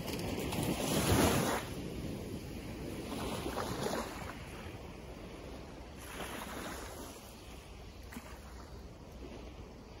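Small, gentle sea waves breaking and washing up a sandy beach, in a calm bay. The wash swells and fades three times, loudest about a second in, with softer surges around four seconds and six and a half seconds.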